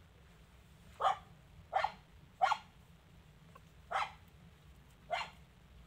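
A dog barking five times in short, sharp barks, irregularly spaced about a second apart.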